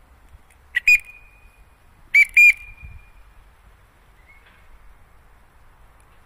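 Short, high recall whistles calling a free-flying African grey parrot back: a pair of notes about a second in, then a louder pair about two seconds in, each trailing off briefly.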